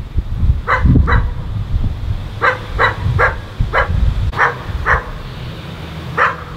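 A dog barking repeatedly: about nine short barks in uneven groups, two, then three, then three, then one near the end.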